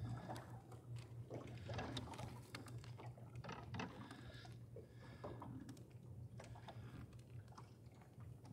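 Water lapping and slapping against the hull of a small wooden sailboat under way in a light chop, in irregular small splashes and ticks over a low steady hum.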